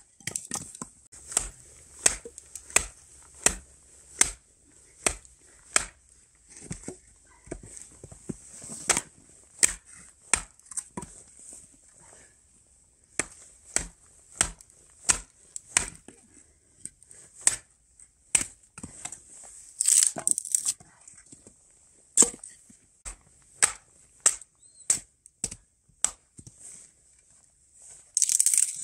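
A wooden baton knocking a large knife down through frozen hazel sticks to split them. The sharp wooden knocks come irregularly, about one or two a second with short breaks, and quicker clusters of cracks come about two-thirds of the way through and again near the end.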